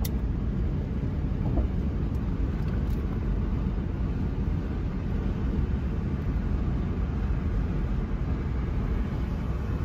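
Steady low road and engine rumble heard inside a car's cabin while driving at highway speed. A lighter clicks once at the very start.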